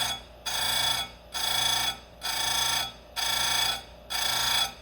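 Square chain grinder's blue wheel grinding a cutter on 3/8 low-profile Picco saw chain in short, even passes, about one a second, each a high grinding that stops as the wheel lifts off the tooth. The grinder's motor hums steadily underneath.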